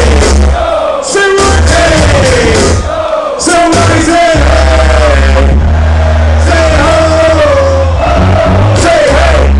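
Live hip-hop music played loud over a concert PA, with a heavy bass line that drops out briefly a few times, a sung melodic line over it, and crowd voices.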